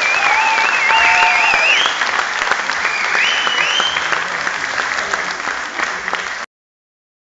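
Audience applauding, with a few high-pitched calls over the clapping; the sound cuts off abruptly about six and a half seconds in.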